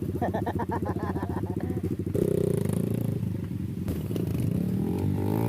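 Trail motorcycle engine running, then revving up and down from about two seconds in, its pitch rising and falling as the throttle is worked. A brief voice is heard near the start.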